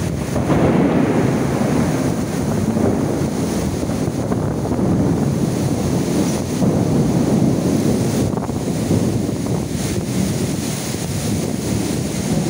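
Heavy rain pouring down in gusty wind, with the wind buffeting the microphone; a steady loud rush that swells and eases a little.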